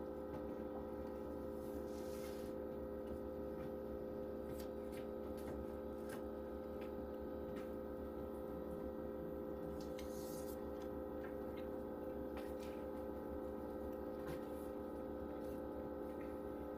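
Steady hum of a machine running in the room, several even tones held unchanged throughout, with a few faint clicks scattered through it.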